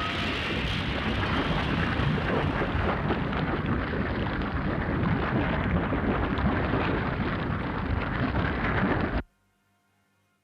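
Film sound effect of a dense rumbling, crackling roar of destruction, like an eruption or an explosion, cutting off suddenly about nine seconds in.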